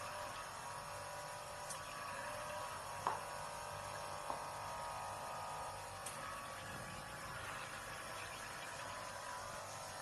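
Steady electrical hum of a running hydrafacial skin-care machine, with a few light clicks, the clearest about three and four seconds in.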